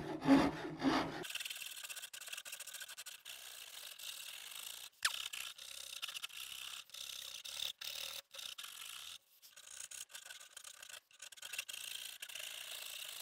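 A dragon rasp files the back of a wooden guitar neck in repeated strokes: a steady rasping scrape with brief pauses between strokes. It is rough-shaping the transition area into a C-shaped neck contour.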